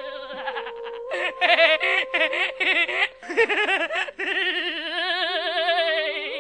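Laughter track: giggling and laughing in short, wavering bursts, broken by brief gaps, over a steady held tone that shifts pitch a few times.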